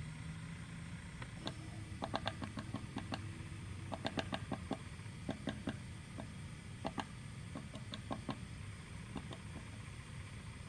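Woodpecker pecking at wood: sharp, irregular taps, some in quick clusters of two to four, over a steady low background hum.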